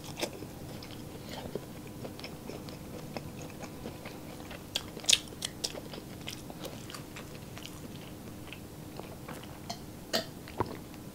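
Close-miked chewing of a mouthful of food: soft wet mouth clicks and smacks, the loudest about five seconds in. Near the end, a sip of water from a glass jar.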